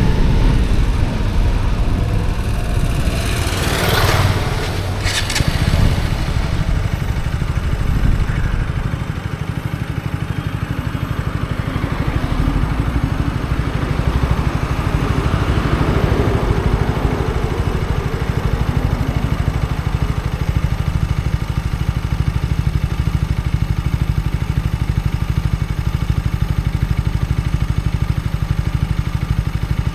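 KTM Duke 125's single-cylinder engine through an Akrapovic exhaust, winding down under swells of rushing noise over the first several seconds. From about nine seconds in, it settles into a steady idle with a fine, even low pulse.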